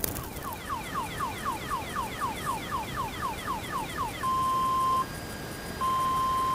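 Electronic alarm sounding: a fast run of short falling chirps, about four a second, then after about four seconds a switch to long steady beeps.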